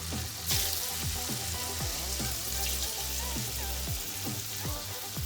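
Chicken thighs sizzling as they fry in melted butter in a skillet, with the sizzle flaring up about half a second in, over background music.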